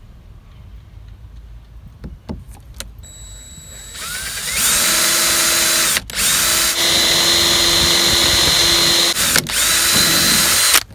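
Power drill with a 6 mm wood bit boring a hole through a canoe's hull. It winds up about four seconds in and runs as a steady whine. It cuts out briefly twice and stops just before the end.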